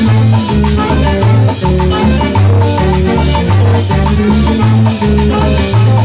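A live Colombian tropical dance band playing an instrumental passage: a bouncing bass line, drum kit and timbales keeping a steady dance beat, and saxophones repeating a short melodic figure.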